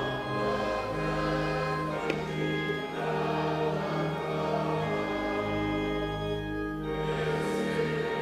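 A choir singing a hymn in Arabic, with instrumental accompaniment, in slow sustained notes.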